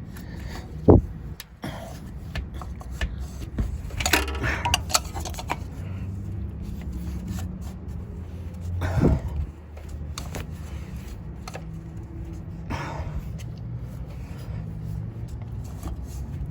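A tool working a new oil filter tight: a few scattered metallic knocks and short clattery scrapes over a steady low hum.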